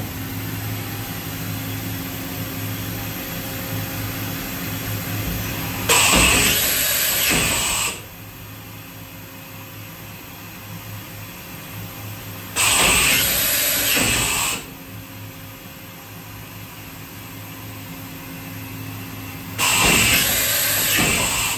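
2007 Makino a71 horizontal machining center powered up, giving a steady hum with several steady tones. Three times, about six to seven seconds apart, a loud rushing hiss cuts in for about two seconds and then stops suddenly.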